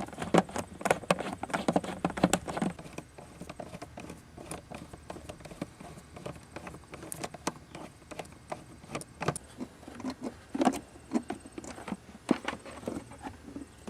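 Clicks, knocks and rattles of hands working the rusted fasteners on a car's air filter housing, dense for the first few seconds, then scattered single clicks.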